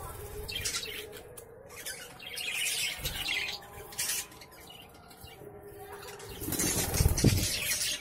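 Budgerigars flapping and fluttering their wings in a cage, with chirps, in several short bouts. The loudest flurry comes near the end.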